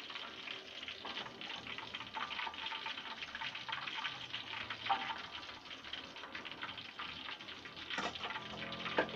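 Hot cooking oil in a wok sizzling with a steady, dense crackle as fried duck pieces are lifted out once they are cooked.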